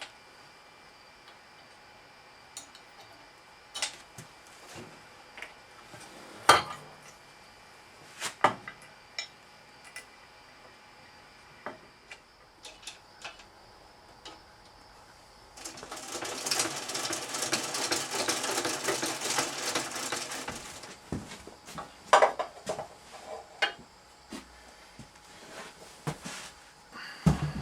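Loose metal hardware and tools clinking and knocking as parts are handled, with scattered sharp clicks and a dense metallic rattle lasting about five seconds in the middle.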